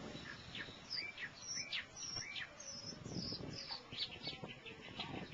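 Birds chirping in a tree: many short, high calls in quick, uneven succession.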